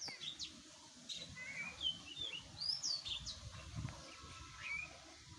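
Birds chirping: short whistled calls that sweep up and down, scattered through, over a faint low rumble.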